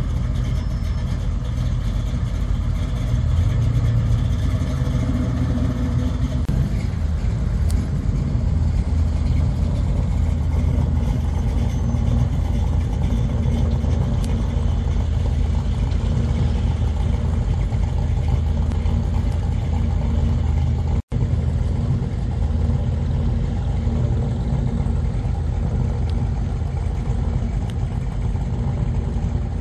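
Deep, steady engine and exhaust rumble from hot-rodded cars driving slowly by: first a red Chevy Nova, then a lowered square-body Chevy pickup. The sound cuts out for an instant about two-thirds of the way through.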